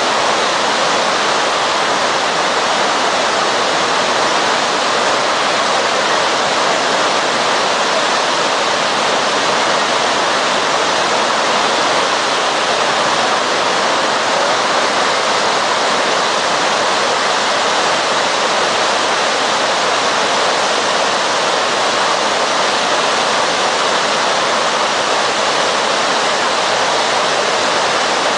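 Rushing water: a steady, even noise with no breaks or changes.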